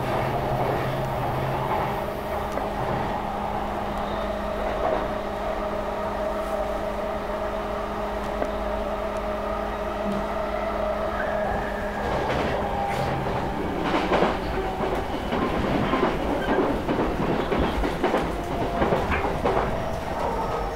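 Electric commuter train running, heard from inside the passenger car: a steady hum and rumble. About twelve seconds in it turns louder and rougher, with clattering from the wheels.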